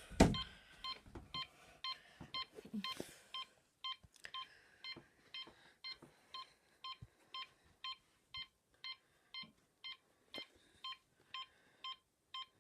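Honeywell Ademco Accenta burglar alarm keypad beeping at an even pace of about two short beeps a second: the exit-delay tone, warning that the system is about to set. A single louder knock sounds right at the start.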